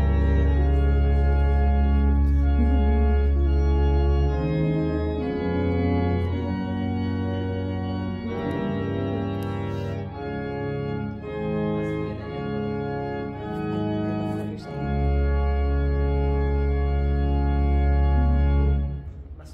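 Organ playing held chords that change every second or so, with deep pedal bass notes under the first few seconds and again near the end. The music stops just before the close.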